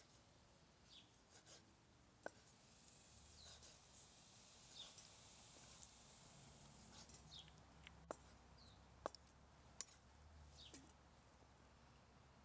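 Quiet background of small birds giving short chirps, with a few sharp knocks of a cleaver striking a wooden chopping board as octopus is sliced: one about two seconds in and three more in the second half.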